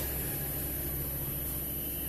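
Steady low hum and hiss, with a faint high-pitched whine.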